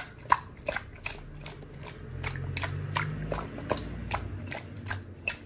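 Irregular sharp clicks and light knocks of kitchen handling while fish is being seasoned, with a low hum coming in about two seconds in.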